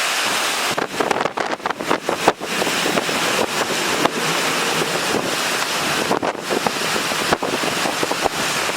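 Strong hurricane winds blowing hard, the gusts buffeting the microphone with crackles and brief dropouts.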